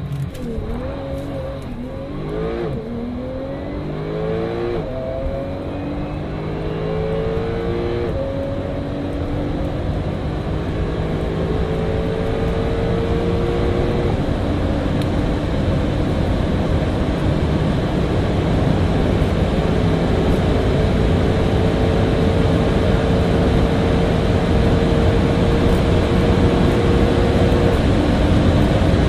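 Porsche 911 Turbo S (991.2) twin-turbocharged 3.8-litre flat-six, heard from inside the cabin, launching from a standstill and pulling at full throttle through its PDK gearbox. The engine note climbs and drops back with each upshift, with quick shifts in the first several seconds and then long, slow climbs in the higher gears. Wind and road noise build steadily as the car nears 300 km/h.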